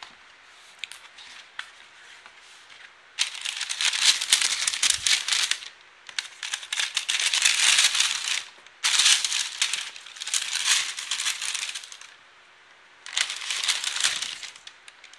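Tissue paper in a sneaker box rustling and crinkling as it is pulled back from around the shoes, in four long bursts separated by short pauses, after a few faint clicks near the start.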